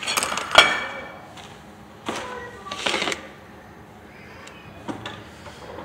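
A ceramic plate handled on a granite countertop: a sharp clack about half a second in, then a few short scraping and rustling noises.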